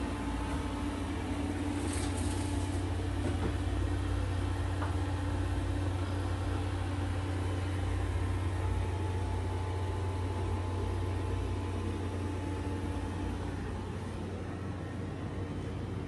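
A steady low machine hum with faint steady tones above it, and a brief hiss about two seconds in.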